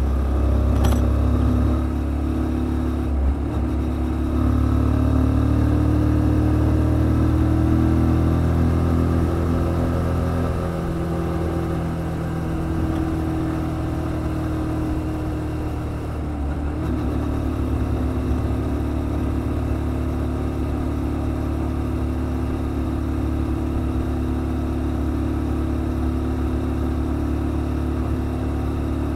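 Kymco Quannon 125 motorcycle's single-cylinder engine running at a steady cruise of about 60 km/h, with wind rushing over the helmet-mounted microphone. The engine note eases and dips briefly a little past halfway, then settles again.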